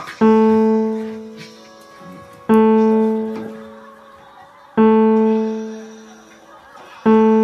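Background music: one keyboard note struck four times, about every two and a quarter seconds, each ringing out and fading before the next.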